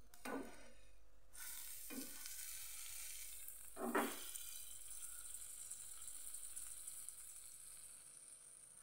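Bread sandwich toasting in a nonstick frying pan, the fat under it sizzling with a steady high hiss that fades near the end. A metal spoon knocks against the pan or bread three times, loudest about four seconds in.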